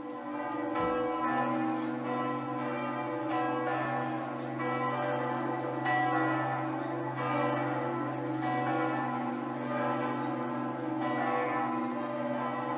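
Church bells ringing, a new stroke coming about every second and a quarter over the ringing of the ones before, so the tones overlap and hum on continuously.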